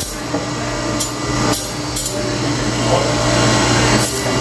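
Electric bench grinder running with a steady hum while a steel knife blade is sharpened against its spinning stone wheel, the blade grinding on the wheel in a few short strokes.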